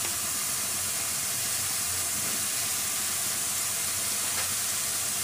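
Ground masala paste frying in hot oil in a steel kadai: a steady, even sizzle.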